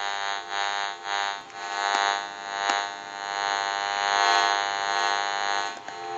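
Electronic buzzing hum from the GE 27909 cordless telephone's handset-to-base radio signal, picked up as interference by amplified audio equipment. It swells and fades a few times, grows louder and steadier about halfway through, and stops just before the end. This hum is normal for a cordless phone near amplified equipment and is not a fault.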